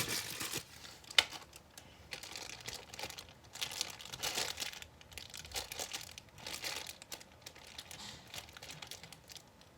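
Plastic packaging bag crinkling and crackling in irregular strokes as it is handled and pulled at, with a sharp click about a second in.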